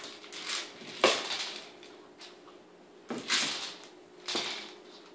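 Kong Wobbler, a hard plastic kibble-dispensing toy, being nosed and knocked about on the floor by a puppy, kibble rattling inside it in four short clattering bursts; the loudest comes about a second in.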